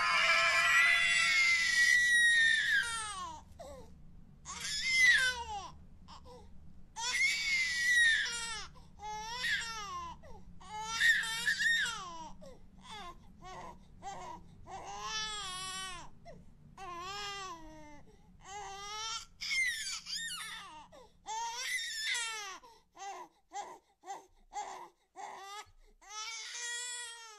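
A baby crying: a run of short wailing cries, each rising and falling in pitch, coming about one every second or so.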